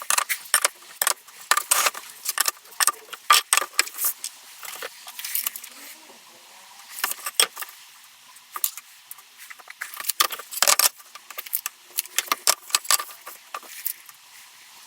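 Metal staples being pried and yanked out of wooden bed slats: an irregular run of small, sharp metallic clicks and scrapes, quieter for a few seconds in the middle.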